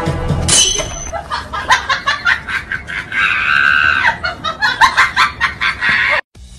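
A person laughing in short, rapid bursts, with a high-pitched squeal of laughter in the middle; it cuts off abruptly near the end.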